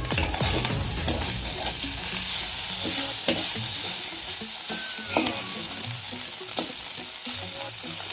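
Food frying in hot oil: a steady sizzle that starts suddenly and keeps going, with a few faint clicks.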